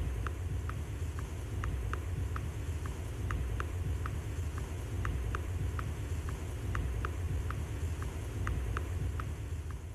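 Low wind rumble on the microphone of an outdoor recording, with short high chirps repeating irregularly about three times a second.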